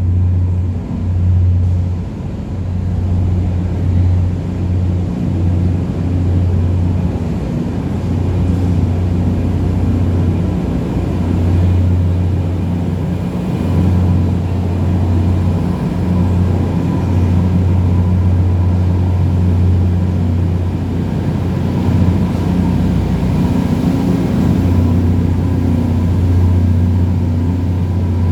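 LORAM LRG-32 rail grinder train's diesel engines running with a steady low hum as the train arrives, with a faint steady whine above it.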